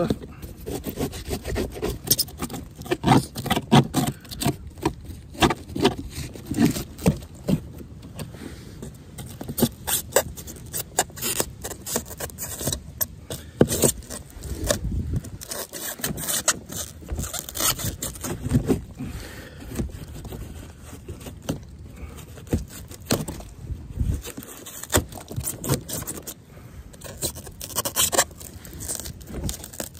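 A screwdriver scraping and picking crumbly old styrofoam insulation out of a pop-up camper's roof panel, a steady run of quick, irregular scratches and clicks.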